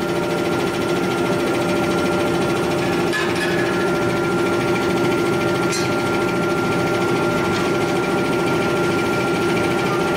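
Steady mechanical hum of heavy forging machinery running, with a constant high whine over a lower drone. Two faint clicks come about three and six seconds in.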